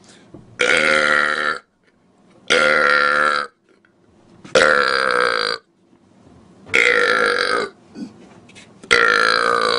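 A man belching loudly five times, one long burp about every two seconds, each lasting about a second with a pitch that slides downward.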